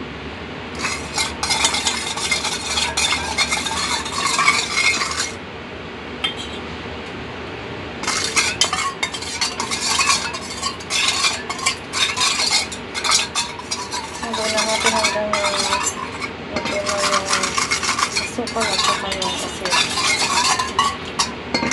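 Metal spoon stirring and scraping quickly inside a stainless steel bowl, in three spells of rapid clinking and scraping with a lull about five to eight seconds in and a brief break near sixteen seconds.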